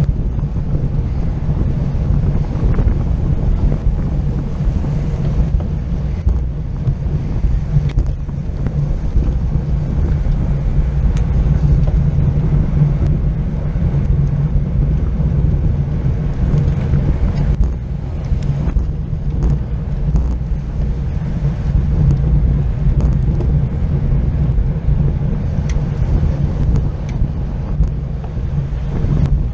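Wind buffeting the microphone of a camera mounted on a racing bicycle moving at race speed, a steady deep rumble.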